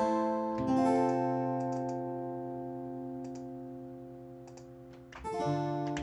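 Sampled acoustic guitar from the Scaler 2 'Blush Acoustic Strum 1' preset playing strummed chords. A chord is struck at the start and again half a second later, then left ringing and slowly fading. A new chord is strummed near the end.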